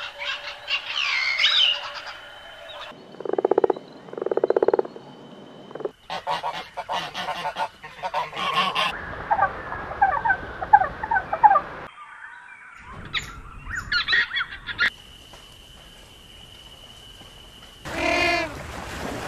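A string of different animal calls, one after another: a sparrow chirping at the start, assorted chirps and calls through the middle, and loud, honking brays from Magellanic penguins near the end.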